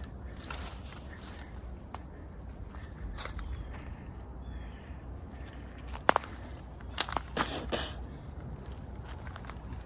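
Steady high-pitched insect drone, like crickets, with a few sharp crunches or clicks about six to eight seconds in.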